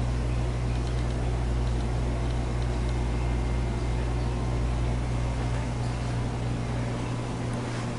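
A steady low hum under a faint hiss, with no speech; the hum weakens about six seconds in.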